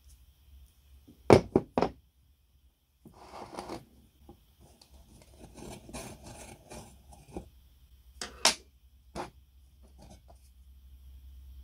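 Cast-iron parts of an antique meat grinder being handled and taken apart: three sharp metal clacks about a second in, then rough scraping as a steel rod slides out of the housing, and two more clacks later on.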